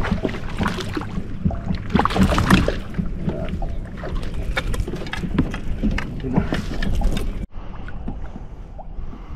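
Irregular knocks and clicks of handling on a fishing kayak, with water noise over a steady low rumble. The sound drops sharply quieter about seven and a half seconds in.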